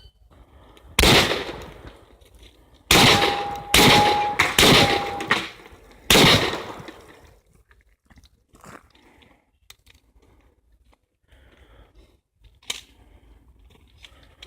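A shot timer beeps, then a shotgun fires five shots over about five seconds, with a ringing tone lingering between the second and fourth shots. Faint clicks and rustles of shell handling follow, with one sharper click near the end.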